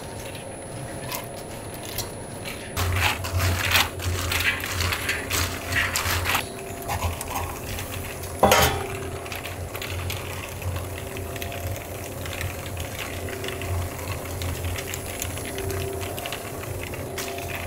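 Snack-production machinery running with a steady low hum and continual mechanical clicking and clinking, and one sharp loud click about eight and a half seconds in.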